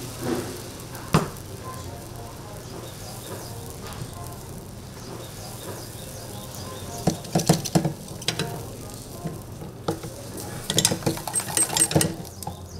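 Batter sizzling in a hot Hong Kong egg-waffle iron. Clusters of metal clanks and knocks come about seven seconds in and again near the end, as the iron is handled and its lid is closed.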